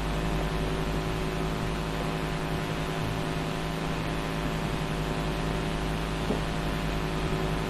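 Steady electrical hum with many evenly spaced tones over a faint hiss: background hum of the recording, with nothing else happening.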